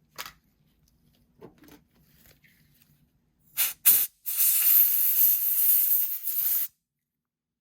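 A spray hissing: two short bursts about three and a half seconds in, then a steady blast lasting about two and a half seconds that cuts off sharply. A few faint light taps come before it.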